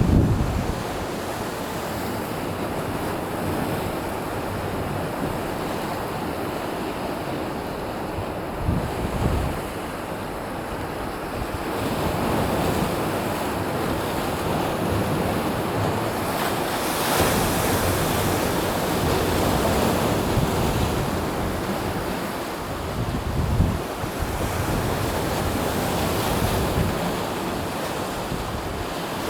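Sea waves breaking and washing on the shore, rising and falling in slow swells, with wind buffeting the microphone in low rumbles.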